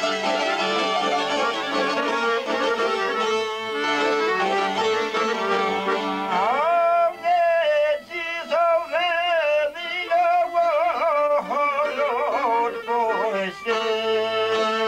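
Traditional Albanian folk ensemble of accordion, violin and long-necked lute playing a tune together. From about six seconds in the backing thins and a single high melody line with slides and quick trills leads, before the full band comes back in near the end.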